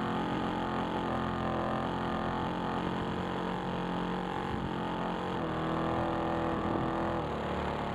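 RC model airplane's motor and propeller running, heard from a camera mounted on the plane, with a steady whine over rushing air; the pitch steps a couple of times in the second half.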